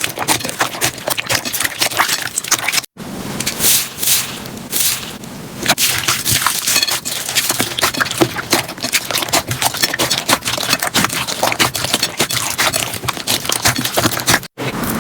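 Slime being squeezed and pressed by hand, making a dense run of small crackling pops and clicks. It breaks off abruptly twice, about three seconds in and near the end.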